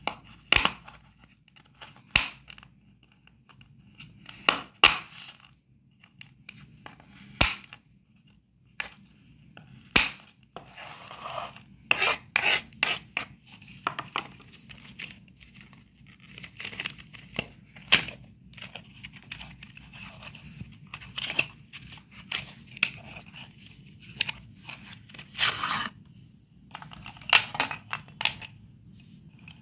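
Kitchen knife chopping through sticks of coloured chalk on a wooden board: single sharp cracks every two seconds or so. From about ten seconds in, this gives way to a long stretch of scraping and crunching as chalk pieces are pushed across the board, with a few light clicks of chalk pieces near the end.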